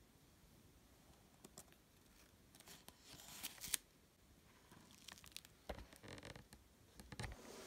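Faint rustling and crinkling, with scattered light clicks and a couple of soft knocks, as of things being handled.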